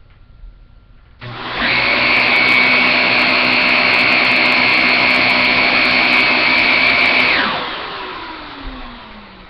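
Shark Lift-Away upright vacuum cleaner running in carpet mode: it starts about a second in, runs loud and steady for about six seconds at about 89 decibels on a sound meter, then spins down with a falling tone.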